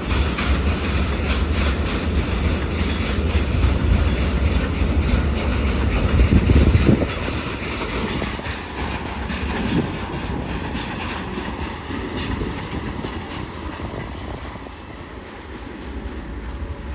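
Oil tanker freight wagons rolling past: wheels clattering over rail joints with some high wheel squeal over a heavy rumble. The rumble drops away about seven seconds in, and the clatter fades over the rest.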